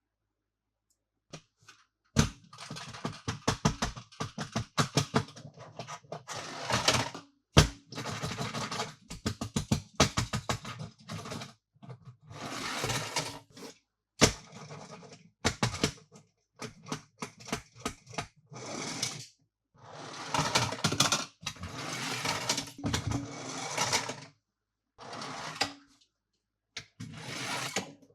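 Hands handling toy packaging and toy cars: irregular bursts of scraping, rustling and quick clicking, with short pauses between.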